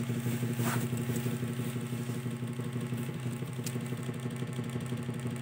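A steady low mechanical hum, like a small motor running without change.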